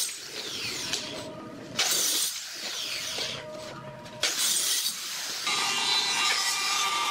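Handheld circular saw running, its blade biting into pine twice, about two and four seconds in, with the motor whining steadily between the cuts. After about five and a half seconds a different steady mechanical hum takes over.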